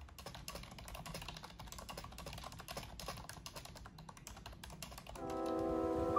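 Fast typing on a computer keyboard, a dense run of quick key clicks. Piano music comes in near the end.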